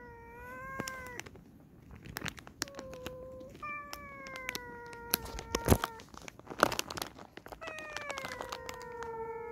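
A stray cat meowing over and over, about four long drawn-out meows that each sink slightly in pitch: begging for food it knows is about to be handed out. Between the meows come short sharp crackles of a plastic snack wrapper being torn open.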